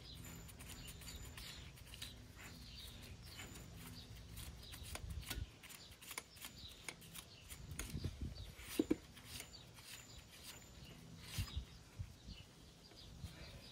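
Faint metallic clicks and ticks of the steer-axle spindle nut being spun and threaded on by hand, with a low steady hum that stops about five seconds in.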